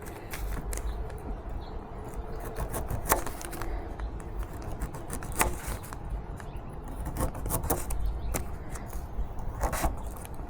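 Irregular clicks and knocks, the sharpest about three and five and a half seconds in, over a steady low rumble.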